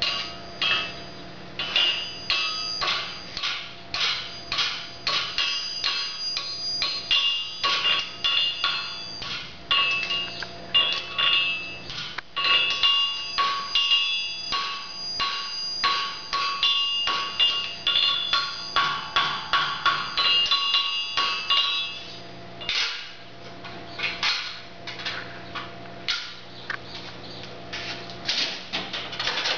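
Hammer striking a red-hot steel horseshoe held in tongs on an anvil: a fast run of ringing metal-on-metal blows, about two a second, then slower, more widely spaced blows from about 22 seconds in. A steady low hum runs underneath.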